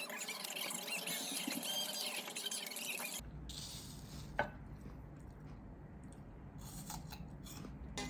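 Soft small handling sounds of someone eating a meal, with one sharp click about four and a half seconds in.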